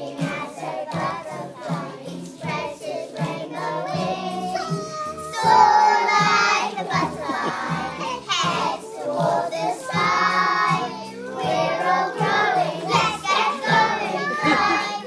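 Children singing a song together over musical accompaniment, growing louder about five and a half seconds in.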